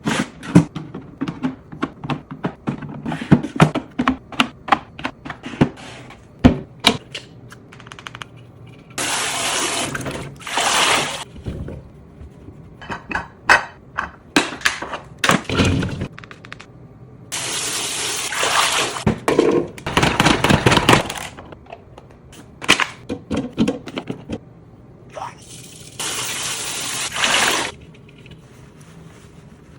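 Fridge restocking: plastic and glass containers and packages clicking and knocking as they are set down and handled, with several stretches of a second or two of steady running or pouring liquid between them.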